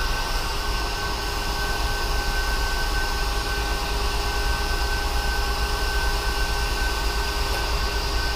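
Steady mechanical hum with a low drone and a few constant high tones, unchanging throughout.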